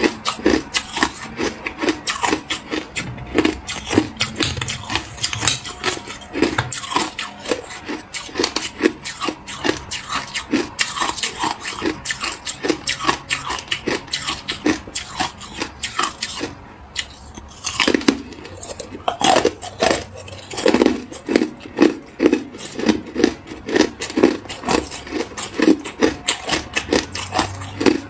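Frozen matcha ice discs being bitten and chewed close to the microphone: a steady run of hard crunches, about two or three a second. There is a brief pause a little past halfway, then a louder bite.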